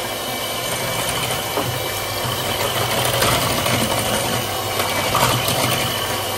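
Electric hand mixer running steadily, its beaters whisking cake batter.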